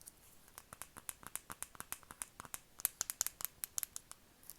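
ASMR tapping recorded close to the microphone: a quick run of light, crisp taps, several a second, starting about half a second in and stopping shortly before the end.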